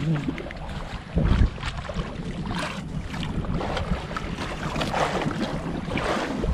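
Wind buffeting the microphone over sea water lapping against a small outrigger fishing boat, with scattered knocks of handling on board and a louder low thump about a second in.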